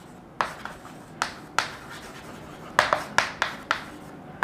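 Chalk writing on a blackboard: a series of sharp chalk taps and short scratches as letters are formed, a few spread through the first half and a quicker cluster near the end.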